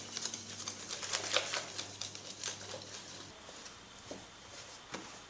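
Faint, irregular ticking and scraping of a utensil stirring flour into a wet dough mixture in a bowl, with a faint low hum that stops a little past halfway.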